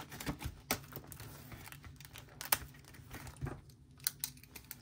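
Paper rustling and crinkling with scattered light clicks and ticks: a banknote and paper envelope being handled as a $50 bill is slid into the envelope.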